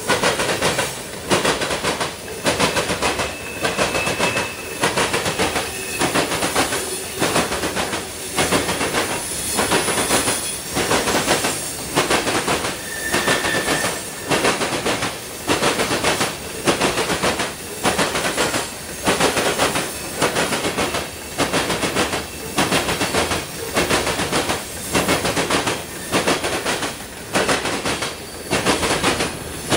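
Freight train of covered hopper cars rolling past, its steel wheels clacking over the track in a steady repeating rhythm, a cluster of clacks about every second or so as each set of wheels goes by. A faint thin squeal comes in briefly a few seconds in and again about halfway.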